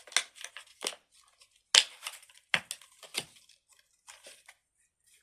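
Irregular crinkling and rustling in short bursts, as a fidget toy or its wrapping is handled.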